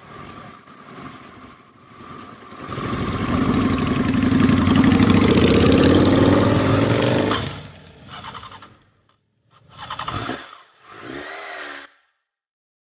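Motorcycle engine accelerating hard, its revs climbing steadily for several seconds before dropping away; a few short engine bursts follow, then the sound cuts out just before the end.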